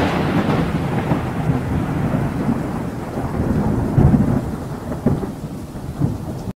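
Thunder-and-rain sound effect: a rolling rumble over a hiss of rain, slowly fading, with louder swells about four and five seconds in, cutting off suddenly at the end.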